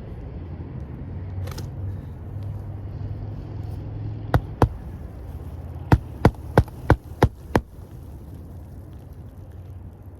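Hammer driving roofing nails to re-nail an asphalt shingle: two blows, a short pause, then six quick blows about three a second. A steady low rumble runs underneath.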